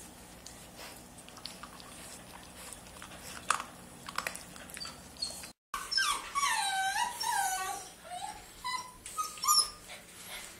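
Golden retriever puppy whimpering: a quick run of about five short, high whines about halfway through, then a couple more near the end, with soft clicks and scratches before them.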